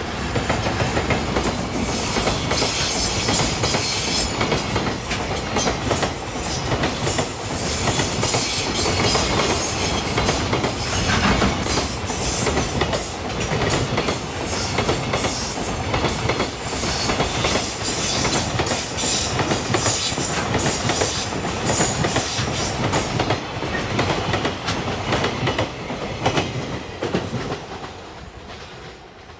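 Container freight train hauled by an EF210 'Momotaro' electric locomotive passing close by: a long run of wagon wheels clattering over the rail joints, with a high squeal from the wheels now and then. The clatter fades away near the end as the last wagons go by.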